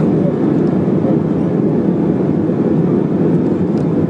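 Steady cabin noise inside an Airbus A319-100 in flight: the engines and the airflow over the fuselage make an even, unbroken rumble and hiss.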